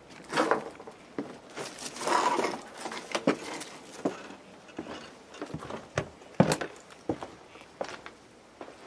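Footsteps crunching and scuffing over loose rubble, with irregular clicks and knocks. The longest scrapes come about half a second and two seconds in, and the sharpest knock about six and a half seconds in.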